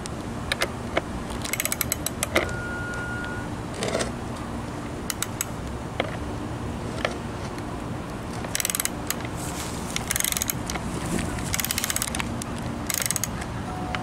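Ratchet socket wrench clicking in several short, rapid runs as it works a skateboard truck's kingpin nut loose.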